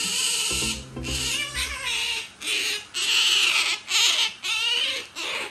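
Asian small-clawed otter squealing: a run of about seven loud, high-pitched calls, each under a second, as it clamours for a tuna lickable treat being fed to a cat.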